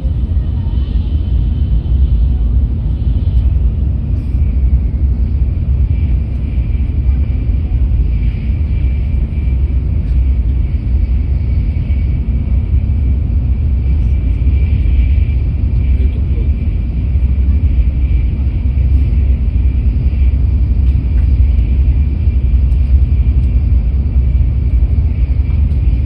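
Steady low rumble of an N700S Shinkansen train running at speed, heard from inside the passenger car, with a faint steady high-pitched tone over it.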